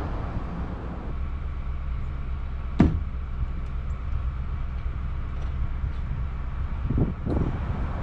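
Pickup truck engine idling with a steady low rumble. A single sharp knock about three seconds in, and a couple of duller thumps near the end.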